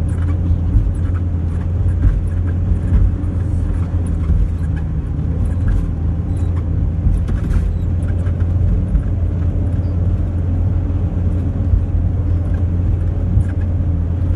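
Steady low drone of an RV's engine and tyres on the road, heard from inside the cab while cruising at highway speed, with a few faint ticks.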